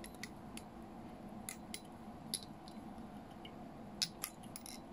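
Faint scattered ticks and light rustles from fingers wrapping a twisted dubbing loop around a hook in a fly-tying vise and handling the loop tool, over a steady low room hum. The sharpest tick comes about four seconds in.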